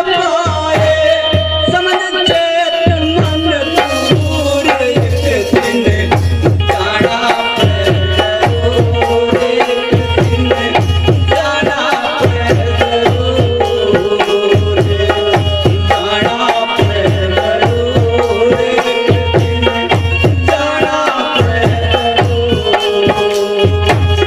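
Live devotional bhajan music between sung verses: a held melody instrument over a hand drum keeping a steady beat of about two strokes a second.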